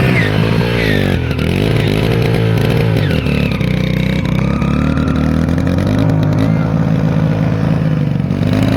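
Motorcycle engine running hard, its pitch dipping and rising over the first few seconds, then holding fairly steady with a slight climb.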